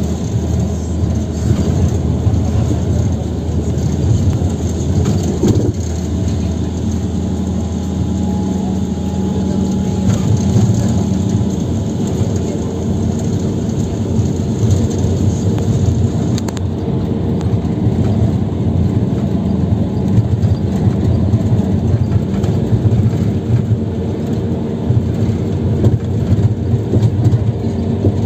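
Steady rumble of engine and road noise inside a moving road vehicle, with a hiss of wind that drops off a little over halfway through.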